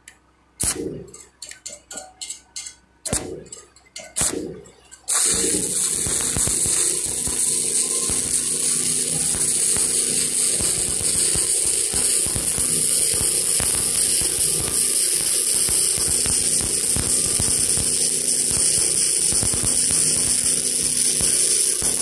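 A few scattered metal clicks and taps, then about five seconds in a steady crackling hiss starts abruptly and keeps going. This is an electric arc welding a joint with 7018 stick electrode.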